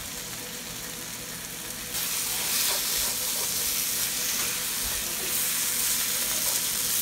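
Onion and tomato masala sizzling as it fries in a pan, with a wooden spatula stirring through it. The sizzle grows louder about two seconds in as the stirring starts.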